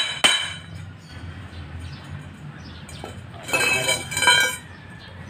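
Hammer blows on a tack-welded steel pipe: two sharp metallic clanks with ringing at the start, then two longer metallic rings about three and a half and four seconds in. The pipe is being knocked straight and flush at the joint before the full weld.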